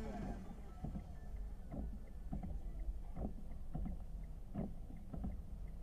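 Car cabin noise in rain with the windscreen wipers running: a low steady rumble with soft, irregular knocks about every half second.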